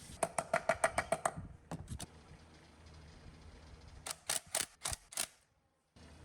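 A quick run of about nine ringing metallic clicks, roughly seven a second, then two more clicks and, near the end, five sharper, higher clicks.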